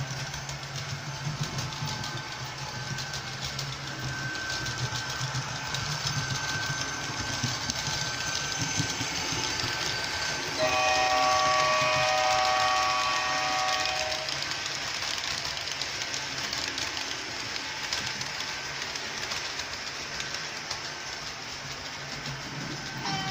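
Model electric locomotive, the ZSSK class 381 in miniature, running past with its passenger coaches, the wheels and motor making a steady running noise. About ten seconds in it sounds a horn chord that lasts about three and a half seconds as it passes.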